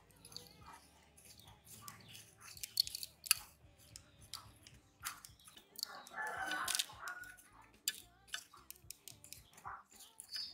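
Crisp crackling of dry breadcrumb coating as a miniature chicken drumstick is pressed and turned in it with small metal tongs, with scattered light clicks. A louder pitched, wavering call comes about six seconds in.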